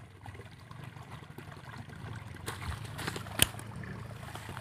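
Rustling and handling noise in grass around a landed fish and a baitcasting rod and reel, over a steady low hum, with scattered light clicks and one sharp click about three and a half seconds in.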